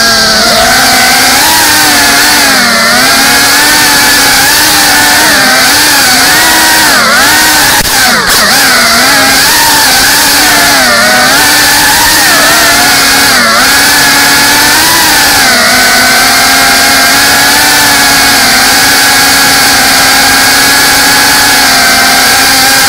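Brushless motors and ducted propellers of a GEPRC Cinelog 35 cinewhoop drone whining in flight, close up on the onboard camera's microphone. The pitch rises and falls constantly with the throttle, then holds steadier from a little past halfway.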